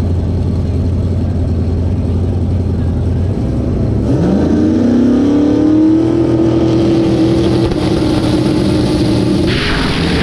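Big-tire drag race cars at the start line: a low engine rumble, then about four seconds in the engine note climbs sharply and holds high as the cars launch and run down the strip. A rush of noise comes in near the end.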